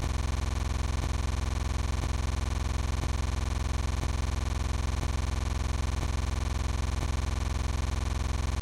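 A steady, unchanging electronic buzz made of many even pitches, with a faint tick about once a second.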